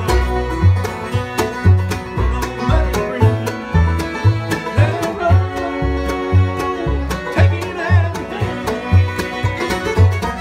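Acoustic bluegrass band playing an instrumental tune: banjo, mandolin and dobro picking over a steady bass line of about two notes a second.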